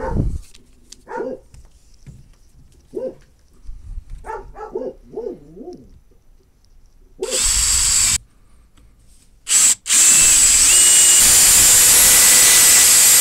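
Cordless drill with a long 3/16-inch aircraft bit drilling a pilot hole through wood. It runs in a short burst about seven seconds in, then starts again about ten seconds in and runs steadily with a high whine. The first few seconds hold only light handling clicks.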